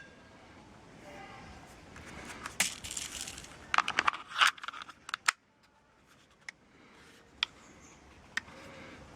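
Metal clicks and rattles from handling a Walther P38 CO2 air pistol: a burst of clicking and clatter in the middle, then a few single clicks.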